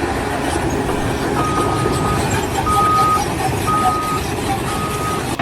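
A reversing alarm beeping four times, about a second apart, over the steady rumble of a heavy vehicle's engine.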